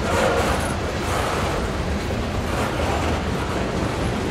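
Loaded coal hopper cars of a freight train rolling past: the steady noise of steel wheels running on the rails.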